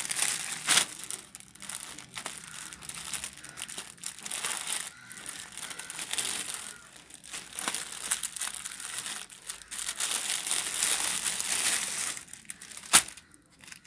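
Clear plastic polybag around a folded garment crinkling and rustling irregularly as hands handle it and pull the garment out, with one sharp crack near the end.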